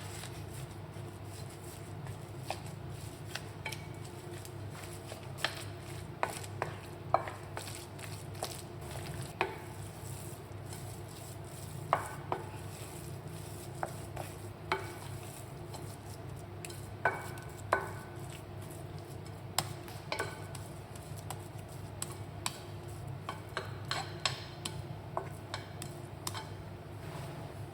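Stirring and mixing in a bowl, with a metal utensil clinking against the bowl at irregular intervals, some clinks ringing briefly. A steady low hum runs underneath.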